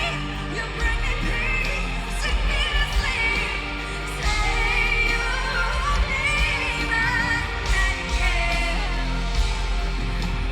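A woman singing a slow pop ballad live over amplified backing music, her held notes wavering with vibrato over a heavy bass.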